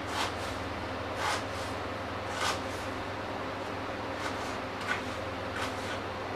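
Kitchen knife cutting on a wooden cutting board: about six separate knocks of the blade against the board, roughly one a second, over a steady low hum.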